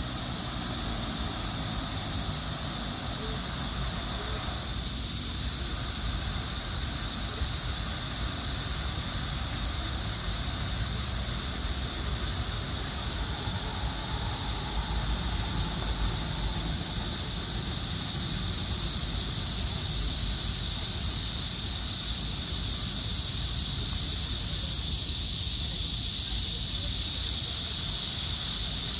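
A steady high-pitched insect chorus, holding one level and growing slightly louder toward the end. Under it are a faint wash of fountain water and a low rumble of wind on the microphone.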